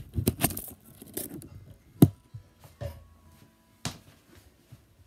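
Handling noise from the camera being turned and set to point down at the table: rubbing and clicking in the first second and a half, then a few sharp knocks, the loudest about two seconds in and another near four seconds.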